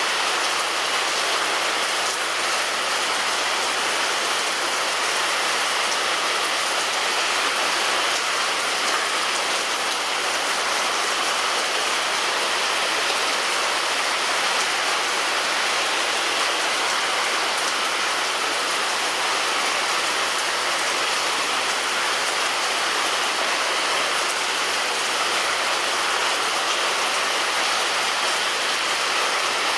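Steady rain falling on a roof, an even hiss that neither builds nor fades.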